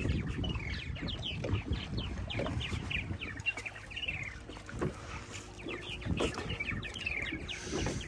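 Small waves lapping and slapping against a skiff's hull, with many short, high-pitched squeaky cries that fall in pitch, several a second.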